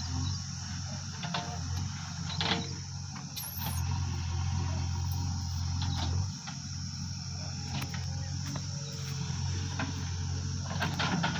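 Backhoe loader's diesel engine running with a low hum that swells between about three and a half and six seconds in, then drops back. A steady high-pitched drone sits above it, with scattered clicks.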